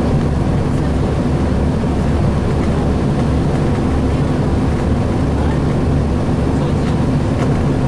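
Cummins ISL diesel engine of a 2007 Gillig Phantom transit bus running steadily, heard from inside the passenger cabin as an even low drone.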